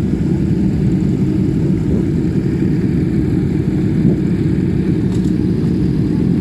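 Motorcycle engine running with a steady low rumble, with no rise or fall in revs.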